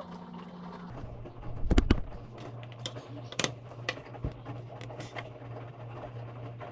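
Small plastic bottle shaken and knocked against a wooden desk: a cluster of heavy thumps about two seconds in, then a few sharp clicks and taps, over a steady low hum.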